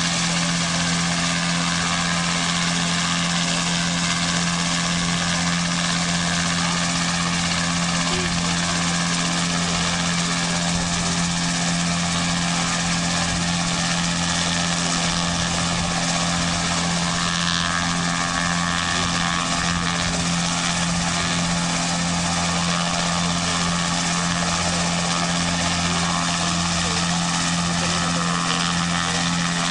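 Dragon Fly ultralight helicopter running steadily on the ground with its main rotor turning: an even, unchanging engine and rotor drone.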